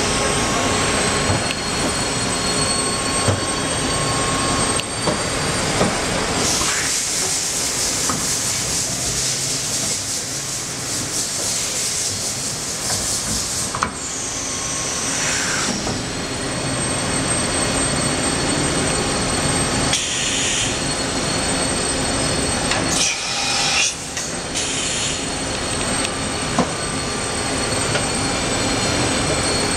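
Matsuura RA-IIF CNC vertical machining center running: a steady mechanical hum with thin high whines, broken by a long hiss lasting about seven seconds. A falling whine follows, then a few short hisses later on.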